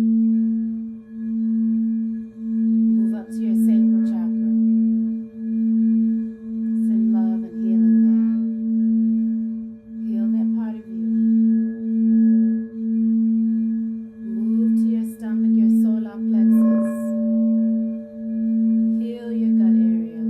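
A singing bowl sounding one steady low hum, kept going by circling the rim so it does not fade. It swells and dips in a slow wobble about one and a half times a second.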